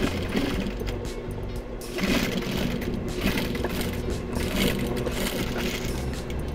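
Gemsy industrial sewing machine running steadily, stitching through layered denim and strap tape, with background music over it.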